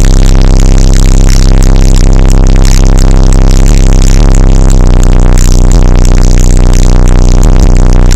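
Extremely loud electronic music with heavy, steady bass blasting from a high-power car sound system, played at full scale so it sounds clipped and distorted.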